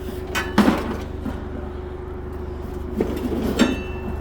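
An engine idling steadily, with two short bursts of metallic clanking and rattling, one about half a second in and another around three seconds in.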